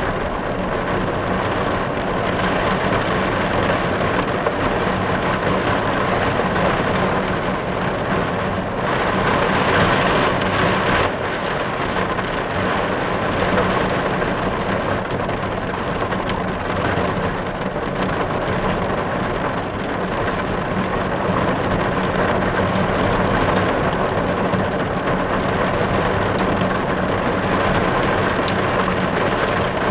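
Steady rain falling on a car, heard from inside the cabin.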